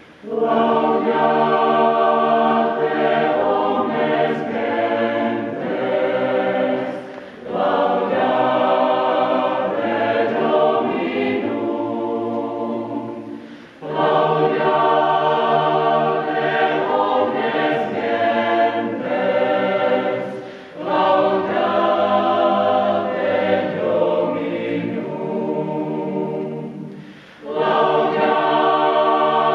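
Mixed choir of men's and women's voices singing held chords in long phrases, each about six to seven seconds, with short breaks between them.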